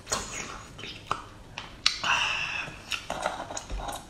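Raw oyster being eaten close to the microphone: a run of sharp wet mouth clicks and smacks, with a short slurp about two seconds in. Near the end, a knife and oyster shells click together as the next oyster is pried open.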